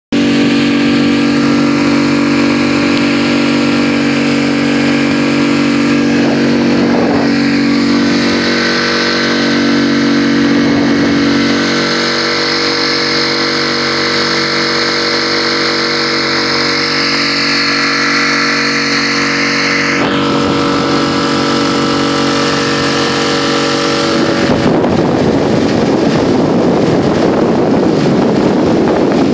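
Mercury F5M 5 hp four-stroke outboard motor running at a steady speed. About 24 seconds in, a loud rush of wind and water noise rises over the engine note.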